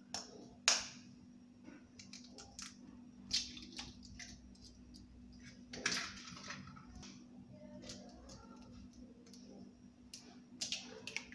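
Metal spoon tapping eggshells to crack them: two sharp knocks at the start, single knocks a few seconds in, and a quick run of taps near the end on a second egg, with egg dropping into a plastic bowl around the middle. A faint steady hum underneath.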